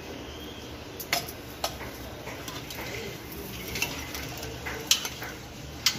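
Kitchen clatter: about five separate sharp clinks and taps of utensils and food pieces against an open aluminium pressure cooker, over a faint steady low hum.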